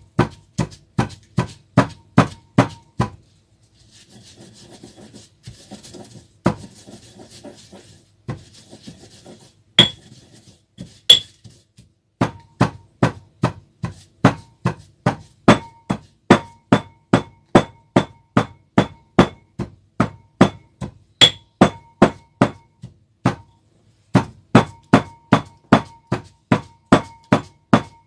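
Pestle pounding seasonings and onion in a mortar, about three strokes a second, in steady runs. Partway through, the pounding gives way for several seconds to softer scraping and a few single strikes, then resumes steadily.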